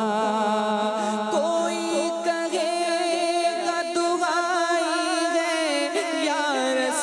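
A man singing a naat (devotional poem) unaccompanied into a microphone, drawing out long, wavering held notes without clear words between the sung lines.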